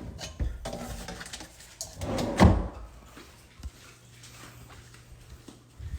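Knocks and rustles of things being handled, with one louder thump about two and a half seconds in.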